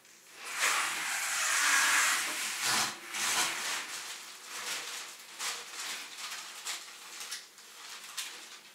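Plastic grocery bags and packaging rustling and crinkling as shopping is unpacked: a loud stretch of rustling for the first couple of seconds, then shorter crackles on and off.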